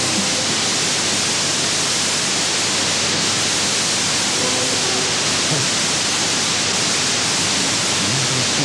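Loud, steady FM hiss from a National RF-B30 portable radio on its rod antenna, tuned to a weak, faded sporadic-E signal from a distant station on 99.9 MHz. The station's programme barely shows through the noise as faint traces of sound.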